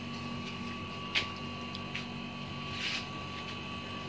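A steady machine hum holding a constant pitch, with a fainter high whine. Two short clicks come about a second in and again near three seconds.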